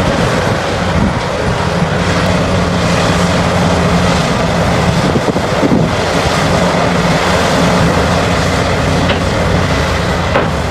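Heavy mining machinery at work: large diesel engines running steadily under load with a low hum, and a couple of faint knocks near the end.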